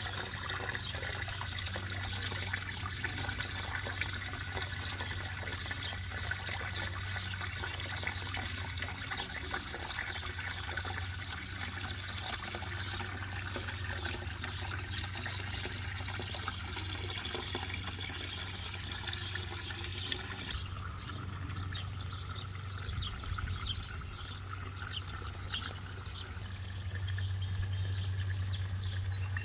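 Water pouring steadily from a pond waterfall spillway and splashing into the pond, over a low steady hum. The splashing turns softer and duller about twenty seconds in.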